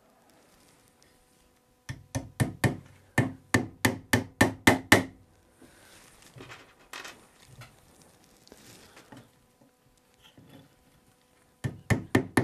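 Tack hammer driving upholstery tacks through jute webbing into a wooden chair seat rail: a run of quick, sharp taps about two seconds in, then handling and rustling of the webbing, then another run of taps starting near the end.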